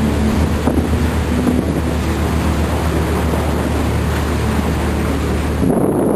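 A boat's engine running with a steady low rumble, under heavy wind noise on the microphone and rushing water in the wake. Near the end the rumble stops abruptly and a different rustling noise takes over.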